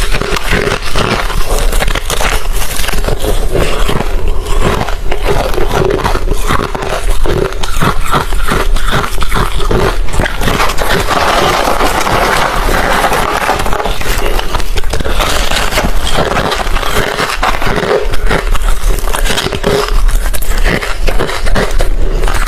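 Hard refrozen crushed ice being bitten and chewed close to the microphone, a loud, dense, unbroken run of crunches.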